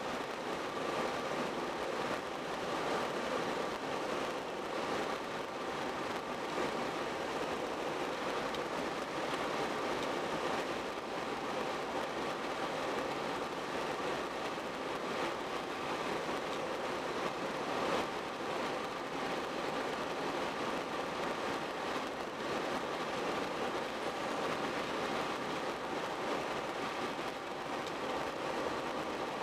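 Steady road noise from a car driving at cruising speed: an even hiss of tyres and wind with faint steady tones.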